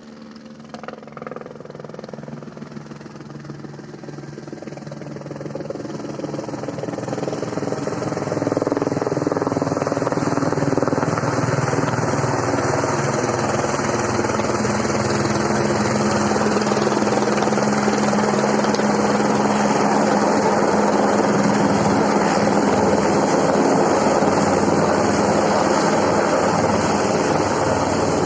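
Helicopter rotor and engine noise growing louder over the first eight seconds or so, then holding steady and loud.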